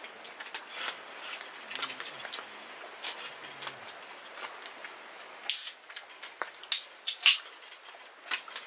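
Rain pattering steadily on the tent. About five and a half seconds in, an aluminium drink can snaps open with a short hiss, followed by a few sharp clicks and fizzes near seven seconds.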